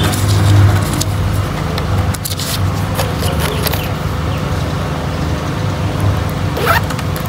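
Steady low mechanical rumble, with a few light clicks and rustles scattered through it.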